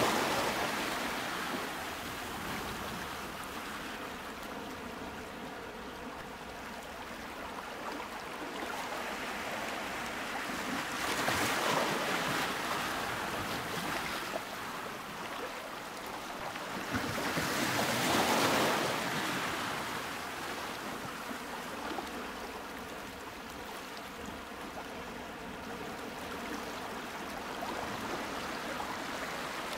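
Ocean waves: a continuous wash of surf that swells in slow surges, loudest about twelve and eighteen seconds in.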